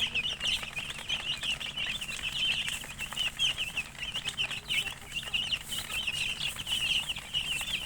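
A group of domestic chicken chicks peeping continuously, many short high chirps overlapping one another.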